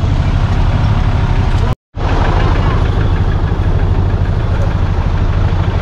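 Off-road vehicle's engine idling steadily, with a brief dropout in the sound about two seconds in.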